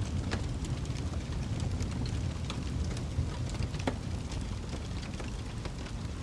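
Wood fire burning in a fireplace: a steady low rumble of the flames with scattered sharp crackles and pops, the strongest about a third of a second in and near the four-second mark.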